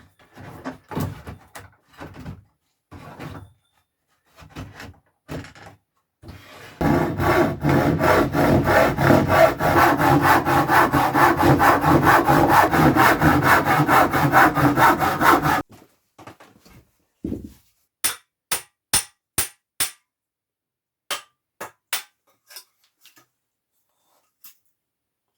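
A saw cutting through a wooden board in quick, even strokes for about nine seconds, starting a few seconds in and stopping abruptly. Light knocks come before it, and sharp clicks follow it.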